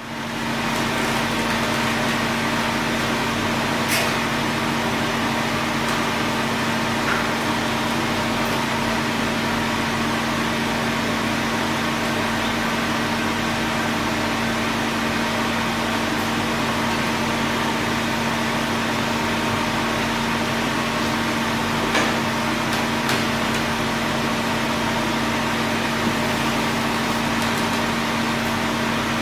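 Steady mechanical hum of workshop machinery with a constant low drone, broken by a few faint clicks.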